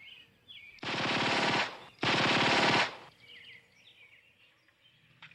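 Two bursts of rapid automatic gunfire, each just under a second long, about a second apart.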